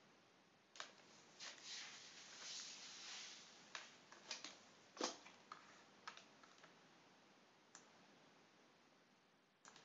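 Faint, scattered keystrokes and clicks on a computer keyboard, the sharpest about five seconds in.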